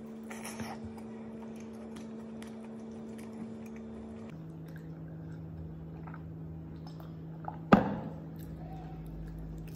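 A person biting and chewing fried chicken on the bone: a tearing bite about half a second in, then soft wet chewing clicks over a steady low hum. A single sharp knock about three-quarters of the way through is the loudest sound.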